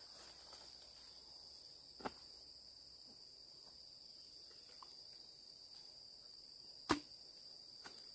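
Steady, faint high-pitched insect chirring, like crickets, with two sharp knocks: a small one about two seconds in and a louder one near the end.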